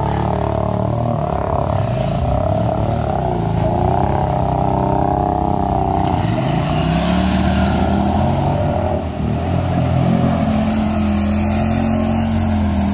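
ATV engines running and revving as quads wade through a flooded creek, the engine pitch rising and falling with the throttle and climbing about six seconds in, over a steady rush of water.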